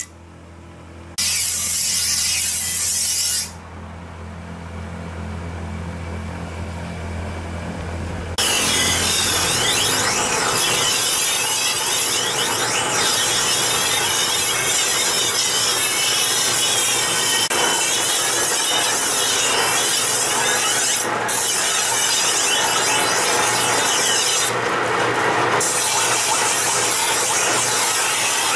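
Steel katana blade being ground. For the first several seconds a grinding machine's motor hums under uneven scraping. About eight seconds in, a steady loud scraping hiss starts as the blade is held flat against a large rotating horizontal wet grinding wheel.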